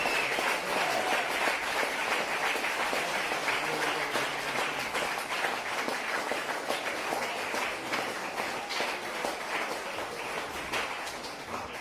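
Audience applauding, the clapping slowly thinning and fading toward the end.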